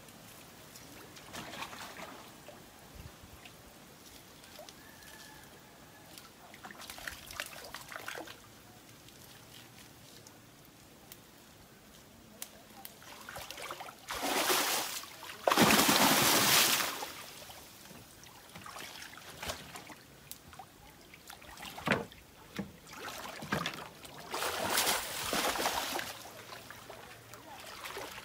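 Water sloshing and splashing as a cast net is hauled in by hand through shallow muddy water. About halfway through there is a loud rush of water pouring and splashing off the net as the bunched net is lifted out, with further splashes near the end.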